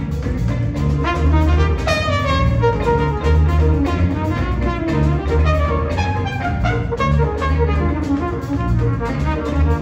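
Jazz band playing a funk tune, with a trumpet soloing over a pulsing bass line and drums.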